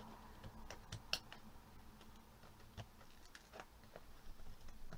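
Faint, irregular clicks and ticks of hands working on a doll's plastic-and-cardboard window box, freeing the doll from its packaging.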